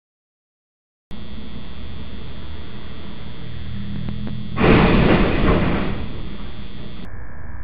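A Penske rental box truck's cargo box striking a low 11-foot-8 rail bridge: one loud crash that tails off over about a second and a half. A steady electrical hum starts about a second in and runs under it.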